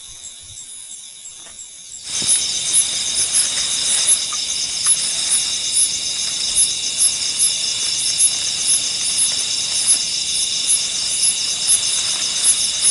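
Dense shrill chorus of night insects, starting abruptly about two seconds in and then holding steady, with a regular pulse about twice a second.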